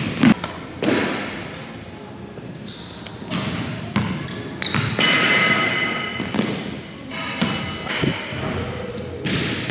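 A basketball being dribbled on a hardwood gym floor, a series of irregular bounces, with a high squeak of sneakers on the floor about five seconds in.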